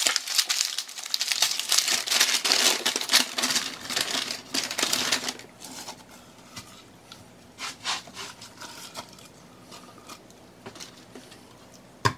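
Brown paper and plastic meat wrapping crinkling and rustling as raw chicken breasts are unwrapped, loud and dense for about the first five seconds, then dropping to occasional light rustles and clicks.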